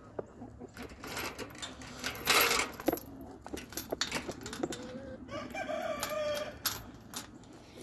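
Backyard chickens calling and clucking, with a loud harsh squawk about two seconds in and a long pitched rooster crow about five seconds in.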